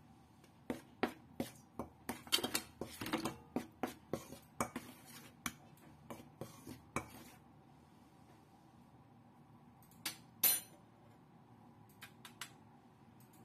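A utensil stirring a dry flour mix in a stainless steel mixing bowl, knocking and clinking against the bowl in quick irregular strokes for about seven seconds. After a pause come two louder clinks, then a few light taps near the end.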